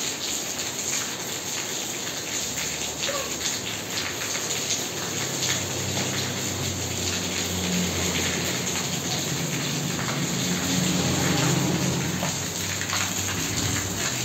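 Rain falling steadily on a wet tiled courtyard, a dense patter of drops. A deeper rushing underneath grows louder from about five seconds in.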